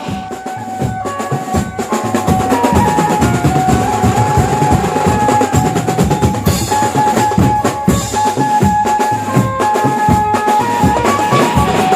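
Background music from a Maharashtrian banjo-party band: busy drumming with a melody of held notes stepping up and down over it.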